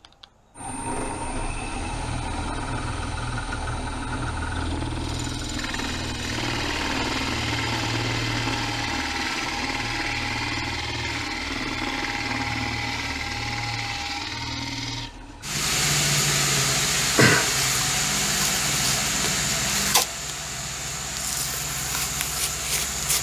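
Bench drill press running and boring a wide hole into a soft cedar block with a Forstner-type bit: a steady motor hum under the cutting noise. About fifteen seconds in, the sound cuts to a different, louder steady machine noise with two sharp knocks.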